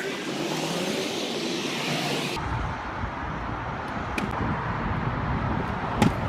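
Road traffic passing on a busy multi-lane road, a steady rush of car and tyre noise, with one sharp knock near the end.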